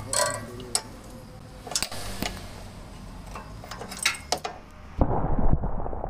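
Scattered metallic clicks and clinks of a socket and extension bar working on bolts under a car. A loud low rumble starts about five seconds in.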